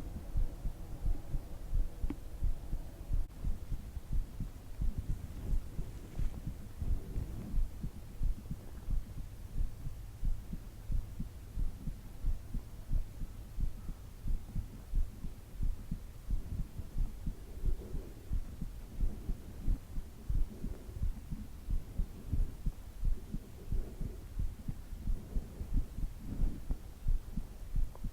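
Heartbeat: low thumps repeating in a steady rhythm over a faint low hum.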